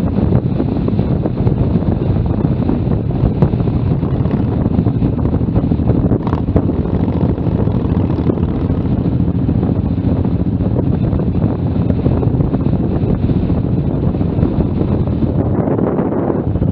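Cruiser motorcycle engine running steadily while riding, with wind rushing over the bike-mounted microphone.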